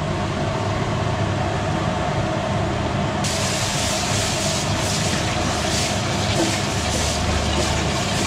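Steady rushing hiss of a large aluminium pot of chicken biryani masala cooking over a strong flame, with a constant hum beneath it. The hiss turns brighter suddenly about three seconds in.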